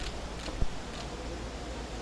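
Ambient sound of a large hall as people walk through it: a steady low rumble with a few faint clicks, and one short sharp knock just over half a second in.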